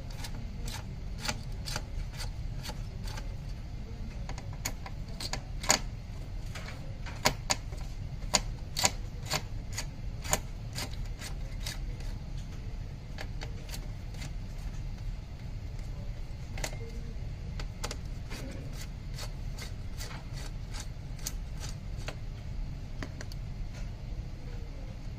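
Irregular small clicks and taps of hard plastic and metal parts being handled, with a few louder snaps between about five and ten seconds in, over a steady low hum. These fit a desktop processor being worked out of its motherboard socket.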